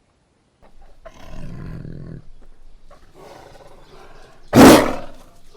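A big cat growling low for about a second and a half, then rumbling more softly, then giving one loud, short roar near the end.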